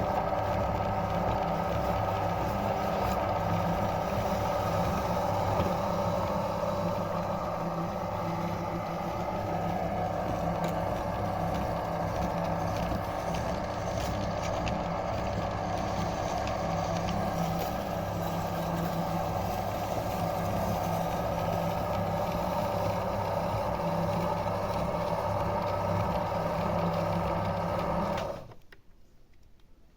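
Meat grinder running steadily as it grinds Oreo cookies. It stops abruptly about two seconds before the end.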